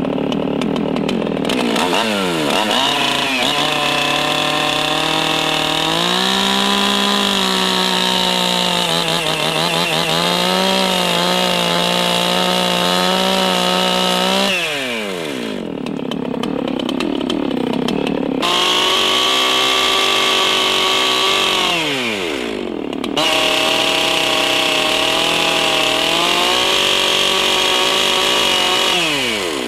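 Gasoline chainsaw running near full throttle as its bar cuts into a log to clear out a lock notch. The engine note falls toward idle when the throttle is released about halfway through, again about three-quarters through, and just before the end, then climbs back up each time.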